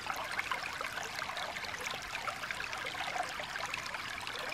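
Shallow stream water trickling steadily over rocks, a fairly quiet, even babble.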